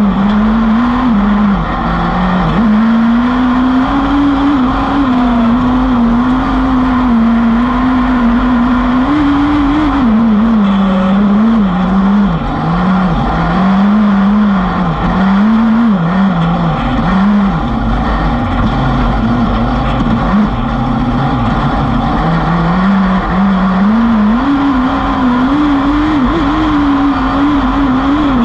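Onboard sound of a 2WD autocross buggy's engine racing on dirt: the engine note rises and falls with throttle and gear changes, sagging as the buggy slows around the middle and climbing again near the end, over a constant rumble and rush of noise.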